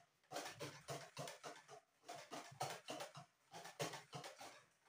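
Hand whisk beating thick pancake batter in a plastic bowl: a steady run of short, soft wet strokes, about three or four a second, working the flour-and-water paste smooth.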